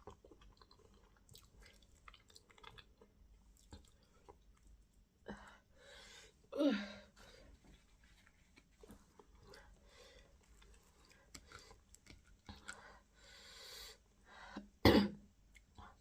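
Close-miked eating sounds: soft chewing and wet lip smacks as okra stew and fufu are eaten by hand. Two louder short throat sounds break in, one about six seconds in that falls in pitch, and a sharper one near the end.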